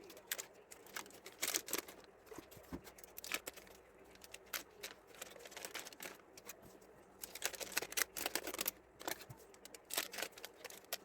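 Sticks of butter being unwrapped by hand and put into a saucepan: irregular paper crinkling and tearing, mixed with light clicks and knocks.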